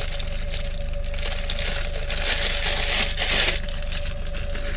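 Plastic bread bag crinkling and rustling as bread rolls are handled and pulled out of it, loudest about two to three and a half seconds in. A steady hum runs underneath.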